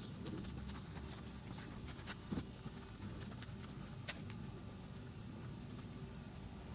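Hand car wash: faint, scattered ticks and patter from the wet, soapy car as a wash mitt is worked over the paint, with a few louder clicks about two and four seconds in.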